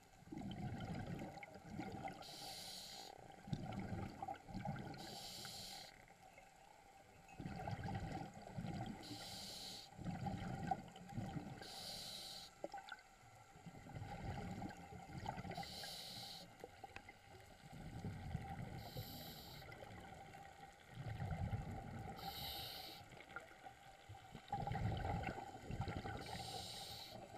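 A diver breathing underwater: a short hiss of inhalation about every three to four seconds, eight times, with rumbling bubbles of exhalation in between.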